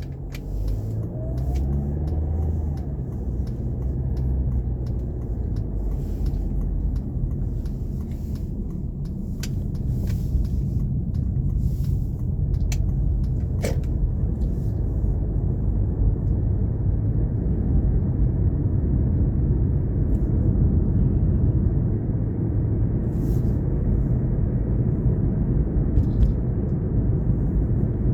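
A car driving, with a steady low road rumble. The engine note rises over the first few seconds as it picks up speed, and scattered sharp clicks come mostly in the first half.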